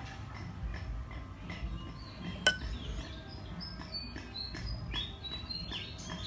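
Small birds chirping with short, high calls throughout. About two and a half seconds in there is a single sharp clink, the loudest sound.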